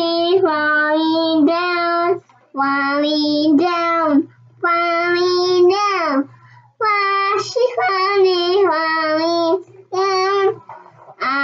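A toddler girl singing unaccompanied in a child's voice, long held notes with sliding pitch, in short phrases broken by brief pauses.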